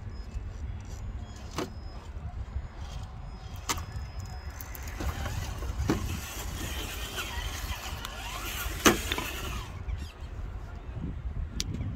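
Traxxas TRX-4 Defender RC rock crawler working over broken concrete slabs: sharp clicks and knocks of its tyres and chassis on the rubble, and from about five seconds in a whine from the electric motor and drivetrain that rises and falls in pitch for about five seconds. A steady low rumble sits under it all.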